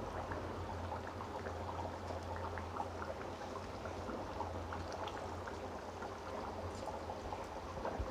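Chicken korma gravy simmering in a pot on the stove, bubbling with many small pops and plops over a steady low hum. The curry is at the end of its cooking, nearly ready to come off the heat.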